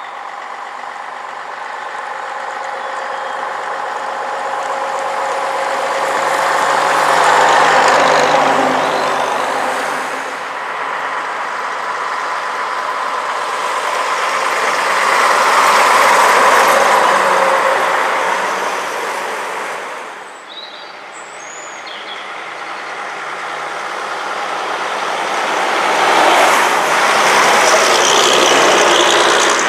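Engines of vintage front-engined double-decker buses approaching and driving past one after another, swelling to three loud pass-bys: about eight seconds in, about sixteen seconds in, and near the end.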